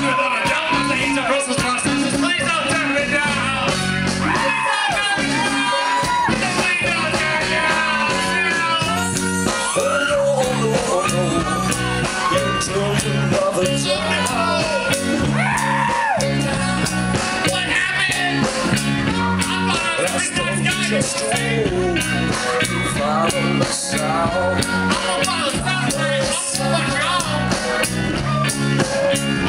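Live rock band playing: drums and bass guitar keeping a steady beat under keyboard, guitar and trumpet, with wavering melody lines on top.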